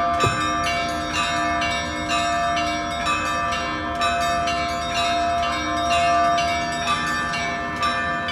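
Russian Orthodox church bells rung together: quick, rhythmic strikes of the small bells over the sustained ringing of larger bells, with a deeper bell stroke just after the start.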